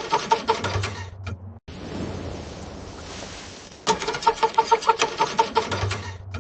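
Cold car engine cranking on the starter without catching: a rapid, even chugging of about seven strokes a second with a steady whine, stopping about a second in. A steady hiss follows, then a second crank of about two seconds that again fails to start.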